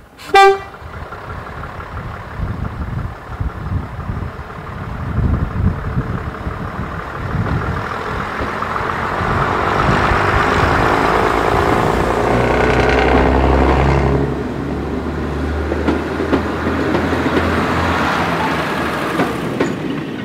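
Class 117 diesel multiple unit gives a short horn blast about half a second in. Then its underfloor diesel engines and wheels grow louder as it runs close beneath, with a steady low engine drone loudest in the second half.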